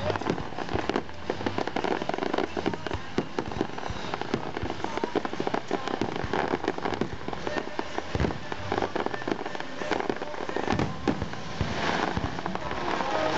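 Aerial fireworks display: a dense, continuous run of crackling and bangs from many shells bursting together, with a few heavier booms in the second half.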